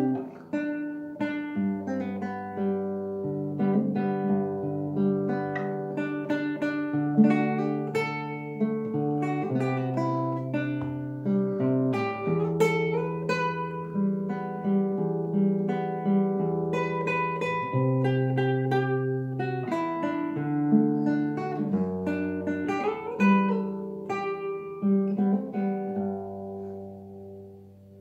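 Solo fingerpicked classical guitar playing a slow melody over bass notes. Near the end the last notes ring out and fade away.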